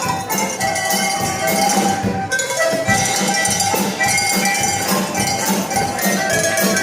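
A German cowbell ringer's set of cowbells rung in a steady rhythm, several bell pitches ringing together and changing like a tune.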